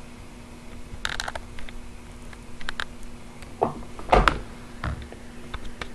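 Scattered light clicks, then a few dull knocks, the loudest a little past four seconds in, over a steady low electrical hum.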